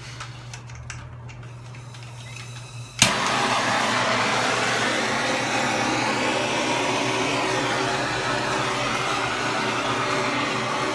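Handheld blowtorch lit with a sharp click about three seconds in, then a steady hissing flame as it heats a copper pipe joint for soldering.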